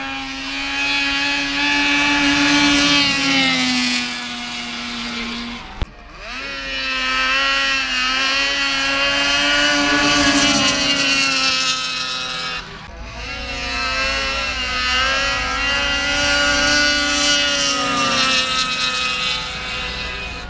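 Snowmobile engines at wide-open throttle on drag-race runs: a loud, high, steady engine note held for several seconds at a time, sagging slightly in pitch near the end of each run. It breaks off abruptly twice, about 6 and 13 seconds in, between runs.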